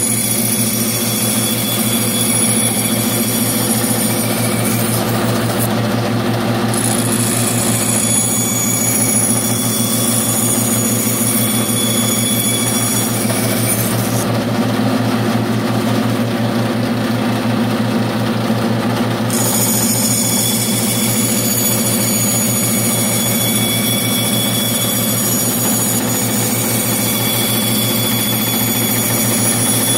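Band saw running steadily with an even motor hum, its blade cutting through a thin sheet of wood.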